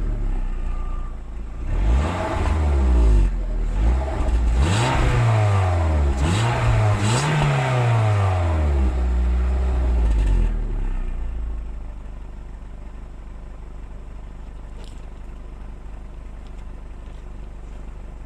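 2002 VW Golf IV 1.6 16V four-cylinder petrol engine heard through its stock exhaust. It is revved in several quick rises and falls for about eight seconds, then settles to a steady idle. The owner finds the exhaust note weird and is unsure whether it is a problem.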